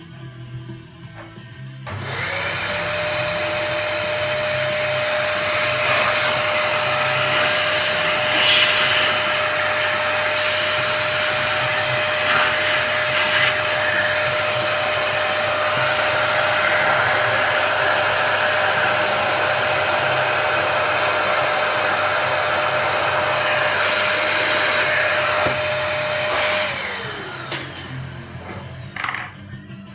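A vacuum cleaner motor spins up with a rising whine, runs steadily for about twenty-four seconds with a loud rush of air, then winds down near the end.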